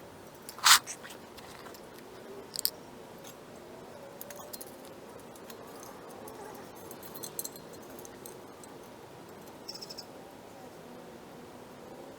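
Scattered sharp metallic clicks and clinks of hand tools and small metal parts being handled while refitting a gas water heater's thermopile and burner assembly. The loudest click comes about half a second in, another near three seconds, then lighter ticks and a short ringing clink near the end.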